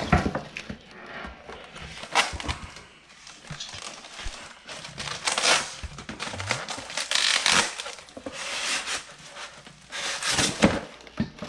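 Plastic packaging wrap crinkling and rustling in several louder bursts, with a few light knocks, as the parts of an electric grill are unwrapped and handled.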